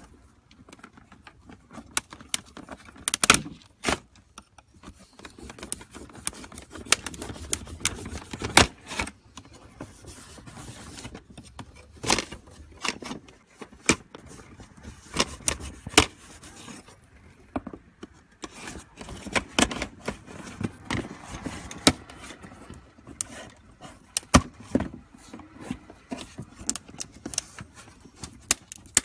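Irregular clicks, knocks and scraping of hand tools working on a Mustang hood vent, taking it off and prying it apart.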